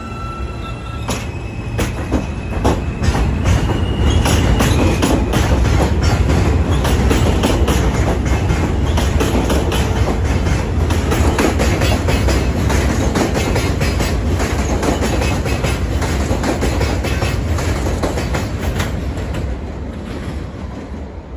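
New York City subway train pulling out of an elevated station. Its motors give a whine that rises a little as it gets going, then the wheels clatter rapidly over the rail joints with a heavy rumble as the cars pass close by. The sound fades near the end.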